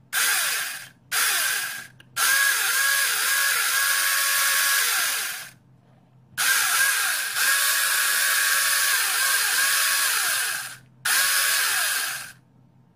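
Homemade electric chainsaw, a 775 DC motor driving the chain through a belt, running free with no load in five on-and-off runs. Each run is a steady high whine lasting from under a second to about four seconds, cutting in and out as the switch is worked.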